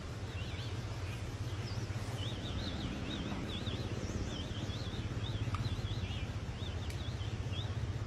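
A bird singing a run of quick, warbling chirps over a steady low hum.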